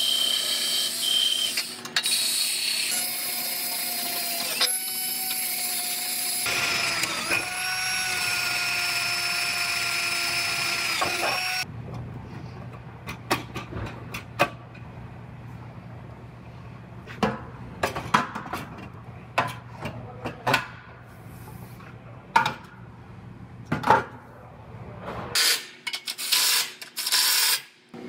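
A handheld power tool runs steadily with a hissing whine, its pitch dipping briefly twice, then stops abruptly about eleven seconds in. After that come scattered sharp clicks and clinks of sheet-metal parts and locking clamps being handled, with a few louder bursts near the end.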